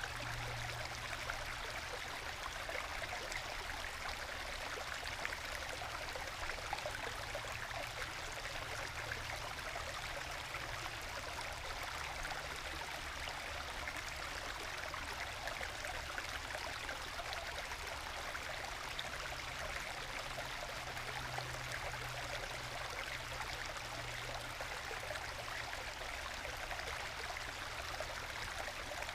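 Small forest stream trickling and gurgling over little bedrock waterfalls into plunge pools, a soft, steady babble with no harsh rush.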